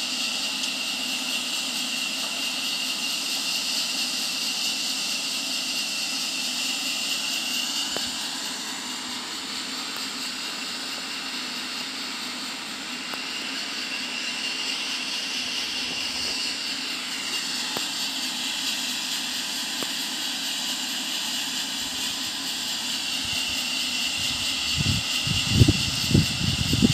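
A steady distant rushing roar whose tone slowly shifts up and down, with a few low thumps near the end.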